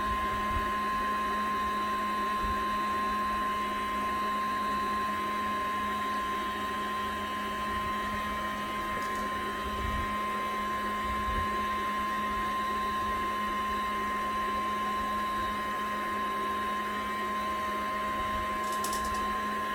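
Prototype compressorless liquid-cooling air conditioner running steadily, its electric liquid pump and motor giving a constant hum with a steady high-pitched whine.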